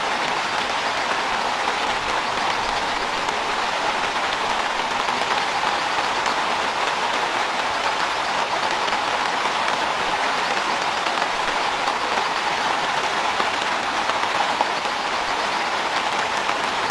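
Steady, heavy rain falling, an even hiss without pause.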